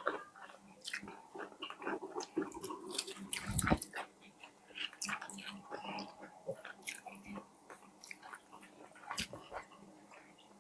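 Close-up eating sounds of fried chicken being bitten and chewed: scattered wet smacks and crunchy clicks at irregular intervals. A louder dull thump comes about three and a half seconds in.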